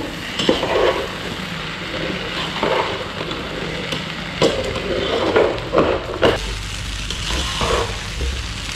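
A slotted metal spoon stirring and turning fried rice in a nonstick pot over a lit gas burner: a steady low sizzle, with irregular scrapes and knocks of the spoon against the pot.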